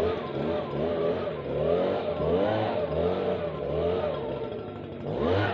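Stihl BG56 leaf blower's two-stroke engine running, its speed rising and falling in a steady, even wave about three times every two seconds.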